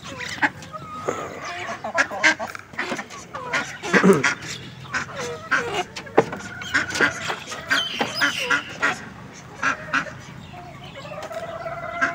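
Mixed poultry flock of helmeted guineafowl and chickens calling as they feed: many short, harsh calls in quick succession, overlapping one another.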